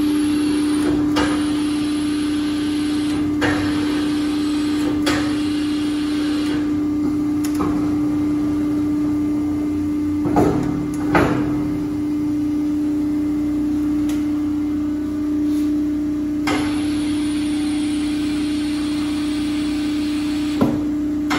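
Vacuum-forming (thermoforming) machine running with a steady hum, with sharp clicks and knocks every few seconds as its controls are worked, the loudest two about ten and eleven seconds in.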